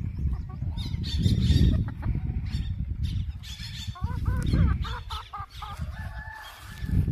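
Aseel rooster clucking in short calls, with a quick run of them about four seconds in. A loud low rumble on the microphone runs under the calls.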